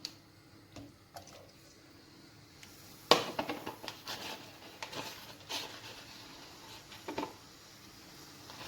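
Shrimp and calamari going into hot olive oil in a frying pan: a sharp clatter about three seconds in, then sizzling with a quick run of crackles and spits, and a few more pan knocks near the end.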